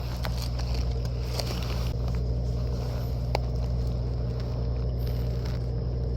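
A steady low engine hum, with a few light clicks and scrapes of handling over it.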